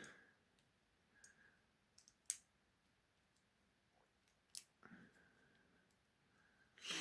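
A few faint, sharp clicks from a pick and tensioner working the spring-loaded levers inside a Master Lock lever padlock. The clearest come about two seconds in, about four and a half seconds in, and at the very end.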